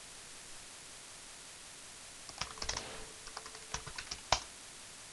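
Keystrokes on a computer keyboard: quiet for about two seconds, then a short run of typing with one harder key press near the end.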